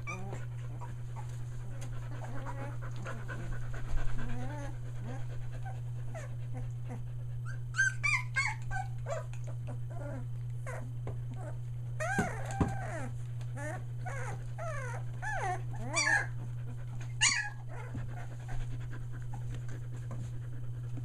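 Three-week-old Australian Shepherd puppies crying: many short, high-pitched cries that rise and fall, scattered early and coming louder and more often in the second half, over a steady low hum.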